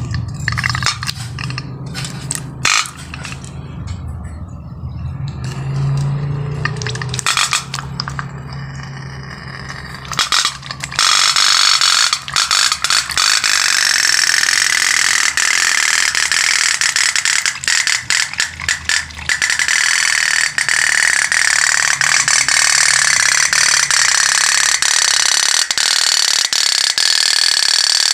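Toy pop-pop (otok-otok) boat's steam engine putting under a big flame. After a stretch of low hum and scattered knocks, a loud, fast, rattling putter starts about eleven seconds in and runs on steadily.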